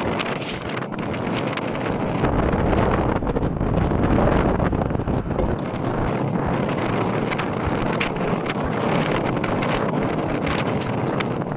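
Wind buffeting the microphone from a moving car, over steady tyre and road noise.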